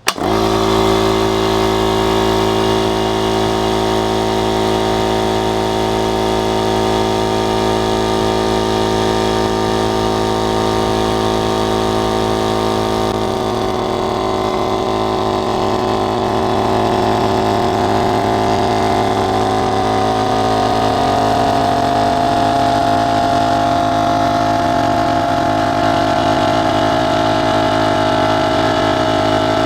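Small oil-lubricated electric air compressor switching on and running steadily, pumping its empty tank up from zero. About 13 seconds in its tone changes, and a whine in its sound slowly falls in pitch as it keeps running.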